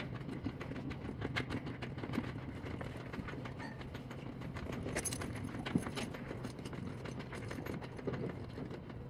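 Horse tack being handled while saddling: scattered light clicks, knocks and buckle jingles as the saddle pad and saddle go onto the horse's back, with one sharper knock a little past halfway.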